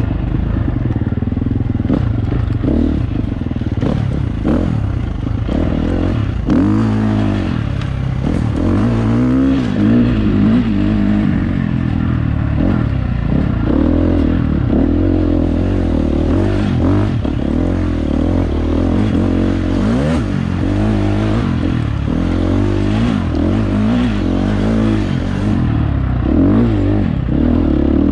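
Dirt bike engine under hard riding, its revs swinging rapidly up and down with the throttle, mixed with clatter and knocks from the bike.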